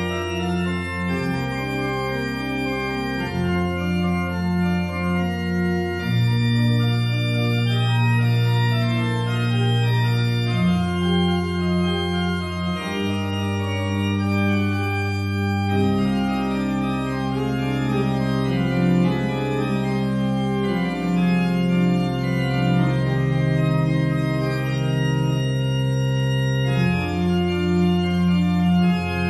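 Church organ playing a toccata as a prelude: long held bass notes change every few seconds beneath quicker figures in the upper voices.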